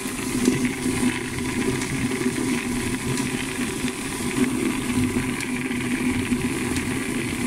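Motor-driven firework star roller running steadily, its bucket turning with a batch of small round stars tumbling inside.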